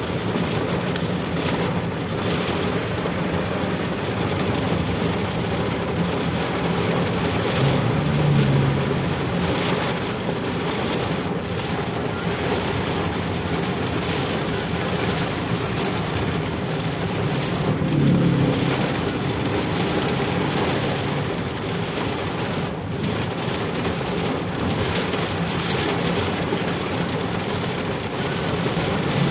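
Steady road and wind noise from riding in traffic, with a vehicle engine running underneath, swelling briefly about eight and eighteen seconds in.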